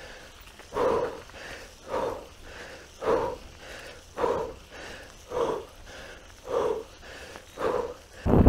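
A mountain biker breathing hard and rhythmically close to the microphone, a strong exhale about once a second with a softer breath between, the panting of exertion on the ride. Near the end, a loud rush of wind noise on the microphone cuts in.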